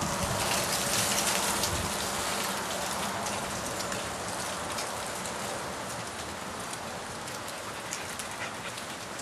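Steady rustling and crackling of dry leaves, a little louder in the first couple of seconds and then slowly fading.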